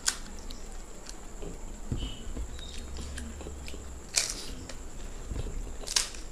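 Crisp fuchka (panipuri) shells cracking as fingers break into them and crunching as one is eaten. Three sharp cracks stand out, just after the start, about four seconds in and near the end, with small crackles and chewing between them.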